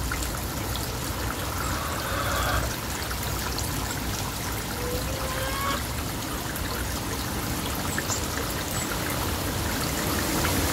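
Small, shallow stream flowing steadily, with an even trickling and babbling of water.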